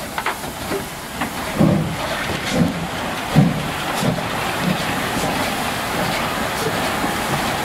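Class 52 steam locomotive hissing steadily as steam vents from its open cylinder drain cocks, with a run of low thumps about once a second.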